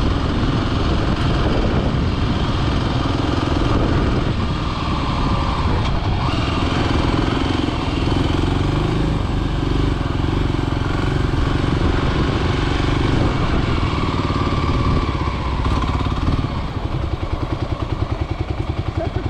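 Kawasaki KLX300's single-cylinder four-stroke engine running as the bike is ridden, then settling to an even, pulsing idle as it stops near the end.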